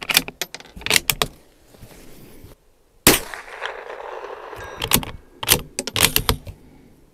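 Bolt-action .22 LR rifle (Bergara B14R) firing hot, high-velocity Remington Target ammunition: a few sharp metallic clicks of loading, then one sharp shot about three seconds in, the loudest sound. It is followed by a quick run of metallic clicks as the bolt is worked to chamber the next round.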